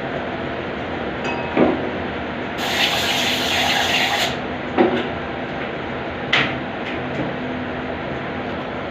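A short hissing burst of spray lasting under two seconds, about two and a half seconds in, with a few knocks before and after it over a steady hum.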